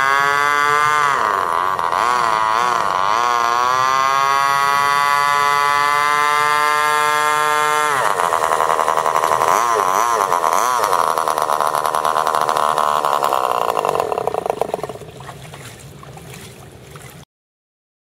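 RC boat's small gas engine running hard: it climbs in pitch with the throttle, dips and rises again, and holds a high steady scream for several seconds. It drops sharply about halfway through, wavers up and down as the boat manoeuvres, then fades away and cuts off near the end.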